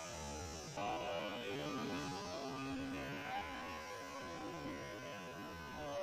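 Small electric motors of antweight combat robots whining and buzzing, the pitch sliding up and down as the robots drive and shove against each other.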